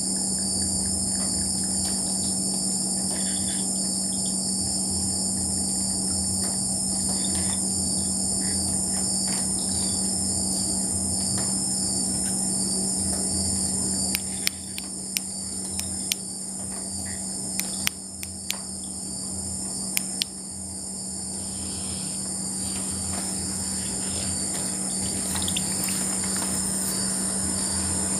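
Night chorus of crickets and other insects, a steady high-pitched trill, over a steady low drone. A handful of sharp clicks come in the middle.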